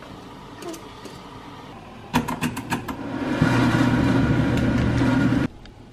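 A few quick clicks, then a small electric motor in a kitchen appliance runs with a steady hum for about two seconds and cuts off suddenly.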